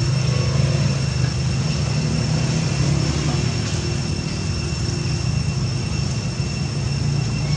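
A steady low engine-like drone that does not change, with a thin high whine held steady above it.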